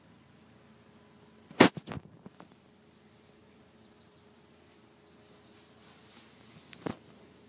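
Handling noise from a phone held by hand: a quick cluster of sharp knocks and rubbing clicks about a second and a half in, and one more knock near the end, over a faint steady hum.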